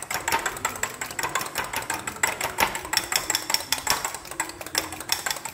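A metal fork beating eggs and milk in a bowl: fast, steady clicking of the tines against the side of the bowl.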